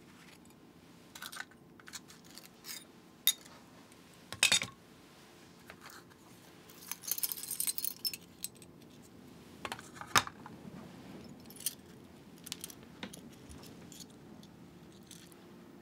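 A small picture frame and photo being handled: scattered sharp clicks and light clinks, the loudest about three, four and ten seconds in, with a brief rustle around seven seconds in.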